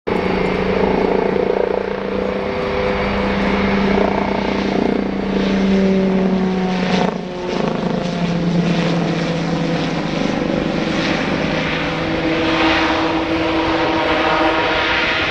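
Eurocopter X3 compound helicopter, driven by two RTM322 turboshaft engines turning a five-bladed main rotor and two side-mounted propellers, running loudly with a steady multi-tone whine. About seven seconds in, the sound dips briefly and its pitch slides down.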